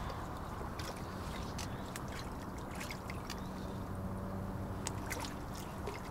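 Light water sloshing with small sharp splashes as a hooked wels catfish is played at the surface. A faint low steady hum lies underneath.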